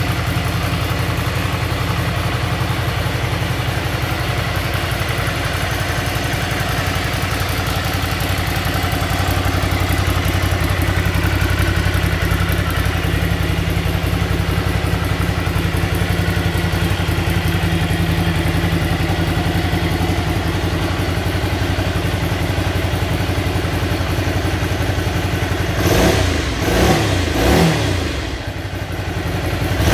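Ducati Scrambler's air-cooled L-twin engine idling steadily in neutral, then blipped up and down in several quick revs near the end.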